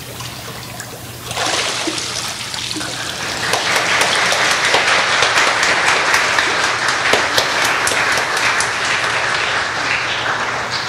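Congregation applauding. The clapping starts suddenly a little over a second in, swells a couple of seconds later and fades near the end.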